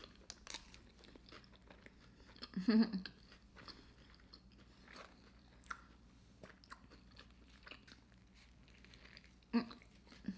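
A mouthful of McDonald's Big Mac being chewed: many small wet clicks and smacks of the mouth. A brief hum of the voice comes about two and a half seconds in.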